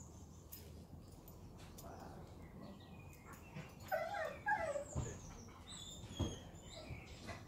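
A dog whining in a few short whimpers about four seconds in, followed by two dull thumps.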